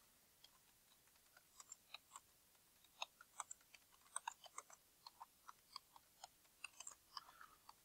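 Computer keyboard typing: a run of faint, irregular key clicks as a short sentence is typed, starting about a second and a half in.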